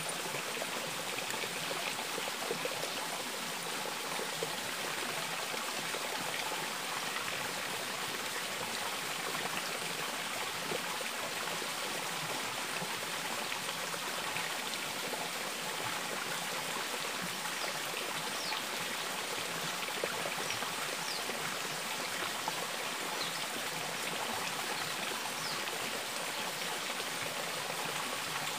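Small stream of water running steadily down a rock crevice, with a trickling, splashing sound.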